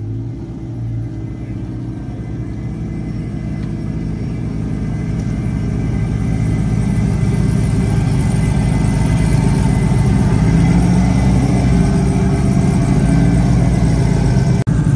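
Car engine running, its pitch rising and falling a little as the sound grows steadily louder, with a brief dropout near the end.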